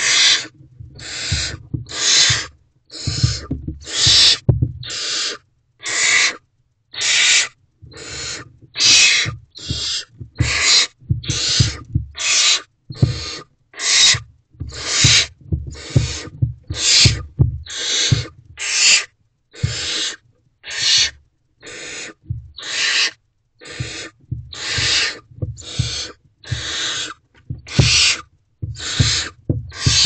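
Barn owlets giving their hissing, rasping begging calls, about one every second and overlapping, with low thumps as they shuffle on the nest litter.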